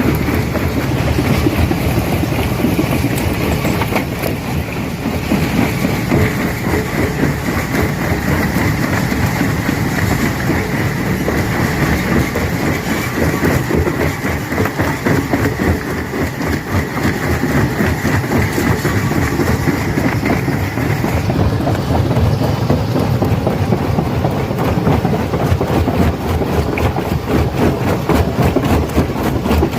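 Rock crusher breaking stone: a dense, continuous clatter of knocks and grinding as rocks are crushed. A high steady whine runs over it and cuts off about two-thirds of the way through.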